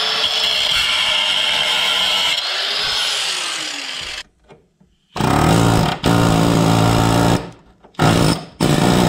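Angle grinder cutting through rusted car-body sheet metal, its pitch dropping and recovering twice as it bites into the cut. After a short break, a pneumatic air chisel hammers at the metal in rapid bursts, stopping and restarting twice.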